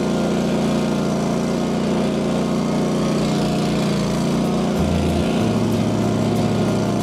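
Small gasoline engine of a tracked stump grinder running steadily at high throttle as the machine drives along on its tracks. Background music with a bass line comes in about five seconds in.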